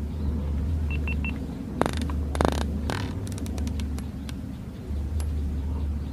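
Rifle scope turret being turned by hand: a run of small, evenly spaced clicks, with rustling handling noise just before. Under it runs a low steady rumble of wind on the microphone, and three short high beeps sound about a second in.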